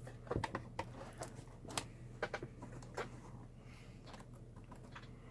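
Scattered light clicks and taps, mostly in the first couple of seconds, over a faint steady low hum from an old Pentium 4 desktop PC being switched on for a test.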